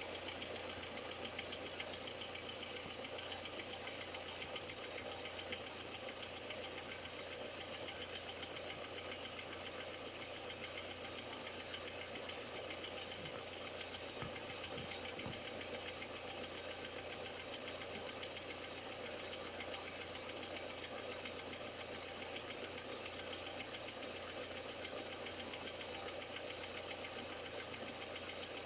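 Chevrolet Niva engine idling steadily with a fast, even knock running through it: the knock that the owner is recording as a fault.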